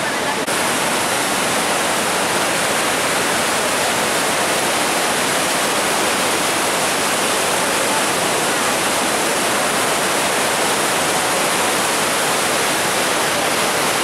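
Rhine Falls: the river's heavy white water pouring over the rocks, a loud, steady rushing noise.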